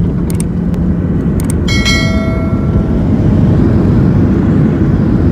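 Steady low rumble of a jet airliner heard from inside the cabin. A few sharp clicks come in the first second and a half, followed by a bright bell-like chime that rings for about a second, from the subscribe-button animation.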